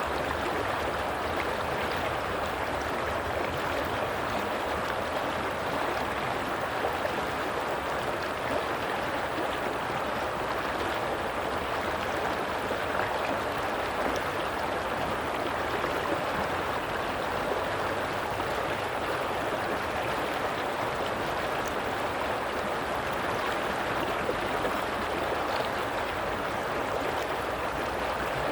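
A stream of water running steadily over rocks, babbling and rushing without a break.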